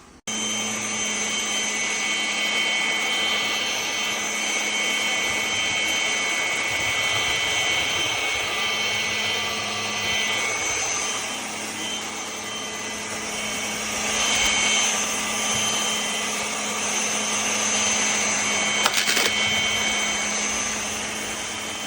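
Cordless stick vacuum cleaner motor running steadily, a whooshing suction noise with a high whine on top. There is a brief click about 19 seconds in.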